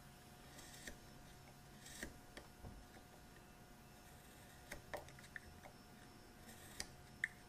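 Faint scratching of a steel marking knife drawn along the dovetail tails, scoring the layout lines into the end of the wooden pin board in several light passes, with a few small ticks.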